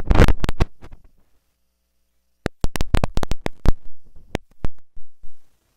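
A burst of loud knocks and rustling, then after a short pause about a dozen sharp, irregular clicks and taps.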